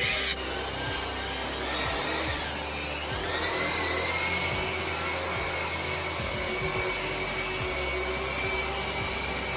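Power polisher with a buffing pad running steadily against a plastic headlight lens, working in restoration compound. Its motor whine rises in pitch about two and a half seconds in, then holds steady.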